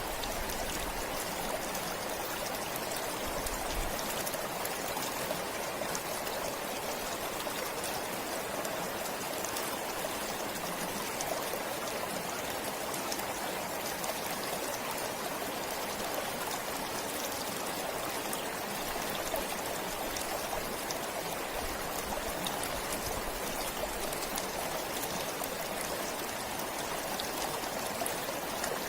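Stream water flowing steadily: an even, continuous rush of running water.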